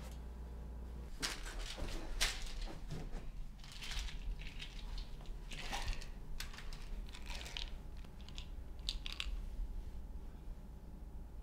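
Orange plastic prescription pill bottle being handled and opened, with scattered clicks and rattles of the cap and the pills inside starting about a second in, over a low steady hum.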